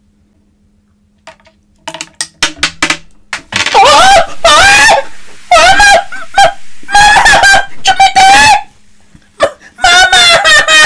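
A person shrieking and squealing in a very high voice, four long wavering cries, loud; a few quick clicks and rattles come just before.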